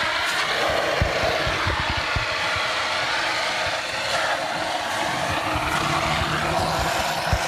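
Fire extinguishers discharging together: a steady, loud hiss that does not let up.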